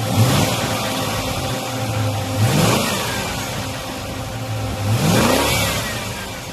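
Ford 351 Cleveland V8 idling, with three short throttle blips about two and a half seconds apart, each rising in pitch and then settling back to idle.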